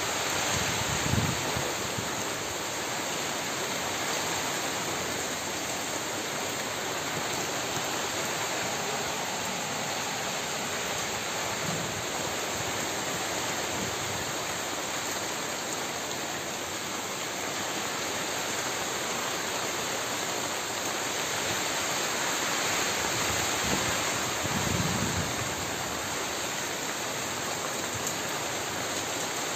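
Steady, even rushing noise, like heavy rain, with a few faint low thumps.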